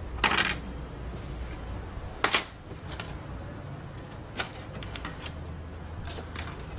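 Scattered clicks and taps of thin steel transformer laminations being handled, with two louder clicks about a quarter second in and just over two seconds in.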